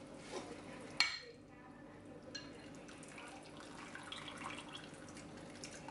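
Mesh skimmer ladle dipping into a stockpot of simmering broth: faint dripping and trickling liquid with light metal clinks, and a sharp knock of the ladle against metal about a second in.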